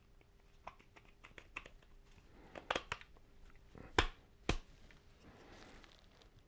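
Small clicks and taps of tool parts being handled during assembly, with a quick cluster of clicks and then two sharp knocks about four and four and a half seconds in.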